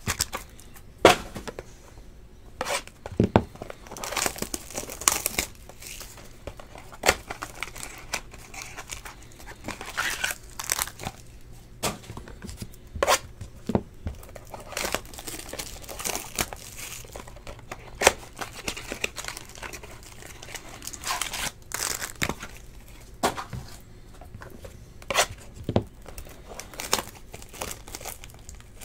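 Trading card packs being opened by hand: plastic wrappers tearing and crinkling, with scattered sharp taps and clicks as packs, cards and boxes are handled on a table.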